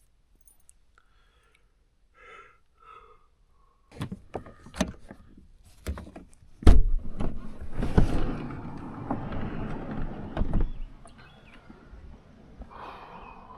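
Camper van's sliding door being unlatched and run open: clicks and knocks, a heavy thunk about seven seconds in, then several seconds of rumbling that dies away near the end.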